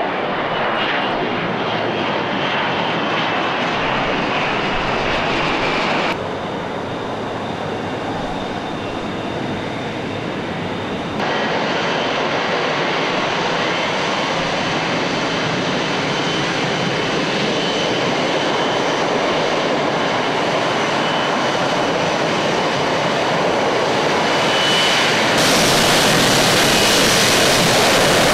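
F-35B's Pratt & Whitney F135 jet engine running with a loud, steady roar and a faint high whine. The sound changes abruptly about six and eleven seconds in and steps louder near the end.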